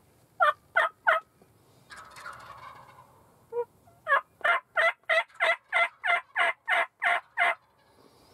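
Turkey yelping: three quick yelps, a short rough call about two seconds in, then a steady run of about eleven yelps at roughly three a second.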